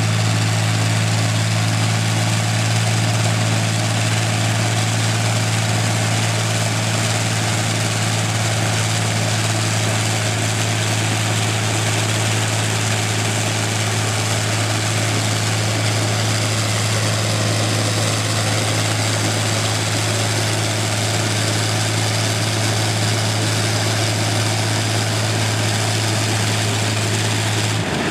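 Rolls-Royce Merlin Mk 500 27-litre V12 aero engine running on a test stand, turning its propeller at a steady speed with an unchanging note.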